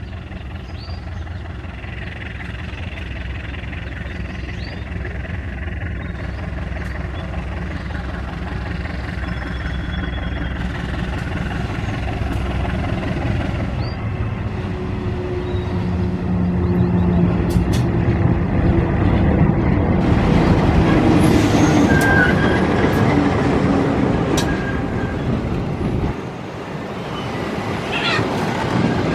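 Diesel-electric locomotive of a passenger train approaching, its engine rumble growing louder for about twenty seconds as it nears. Near the end the locomotive passes and the coaches roll by, with wheels clattering on the rails and a brief wheel squeal.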